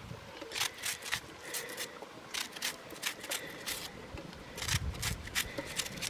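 Knife slicing a raw onion held in the hand, a run of short crisp cuts at about two or three a second.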